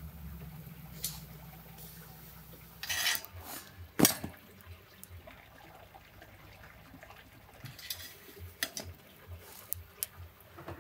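Metal tongs clinking and scraping against a grill grate and a metal serving tray as grilled vegetables are lifted off and set down, with one sharp clink about four seconds in.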